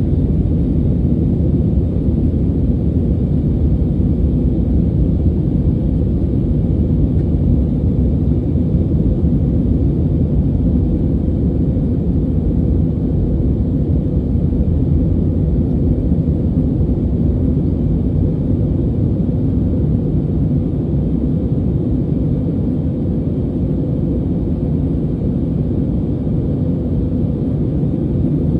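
Steady cabin noise of an Airbus A320neo climbing out, a low rumble of engines and airflow heard from inside the cabin.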